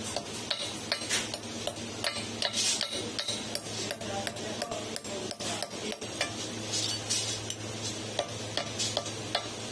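Hand hammer striking a chisel held against sheet metal on a steel anvil rail: a quick, uneven run of sharp metallic clinks, about two to three a second.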